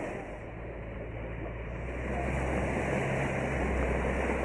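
Water rushing and splashing around a Jaguar E-Pace SUV as it wades through a shallow river ford, over a low steady engine hum. It grows louder about halfway through.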